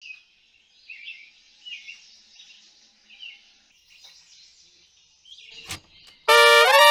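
Faint bird chirps for the first few seconds, then a click as a push-button key on a cassette radio is pressed. About six seconds in, mariachi music starts loudly with a held trumpet note that slides upward.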